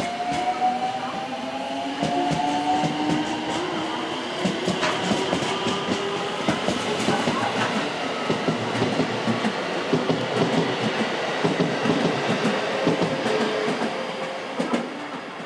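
JR West electric multiple unit pulling out of the station: its motor whine rises steadily in pitch over the first few seconds as it accelerates, then the wheels clatter over rail joints as the cars roll past, fading near the end.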